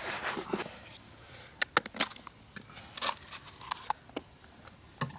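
Hands mixing and kneading damp groundbait in a container: a soft rubbing at first, then scattered crackles and sharp clicks.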